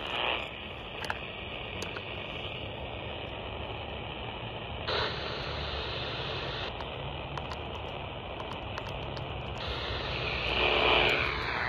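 Steady radio static hissing from a Radio Shack scanner's speaker while it is tuned across the 27 MHz band with no signal coming in, with a few faint clicks of its keypad being pressed. The hiss changes character about five seconds in and again near the end.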